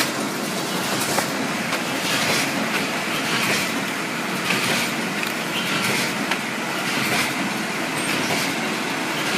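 Snack packing machine running steadily, a mechanical clatter with a regular pulse about once a second as it cycles through packs.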